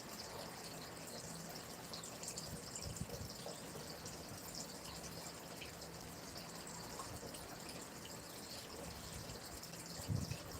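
Stream water flowing and trickling, a steady faint babble with small drips and splashes. A short low thump comes near the end.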